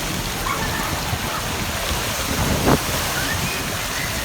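Steady rush of spraying and splashing water from a water-park splash zone, with a brief thump about two and a half seconds in.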